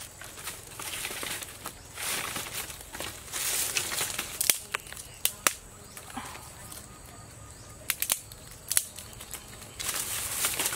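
Dry leaf litter rustling as sticks are handled on the ground, with several sharp clicks and taps scattered through.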